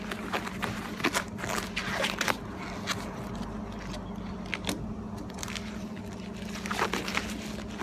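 Grey peel-off wrap being pulled by hand from a car's rear deck, crackling and tearing in irregular bursts over a steady low hum.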